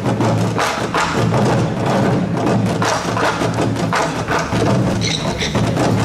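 Korean traditional music for the ogomu, the five-drum dance: repeated drum strikes and sharp knocks over a steady low tone.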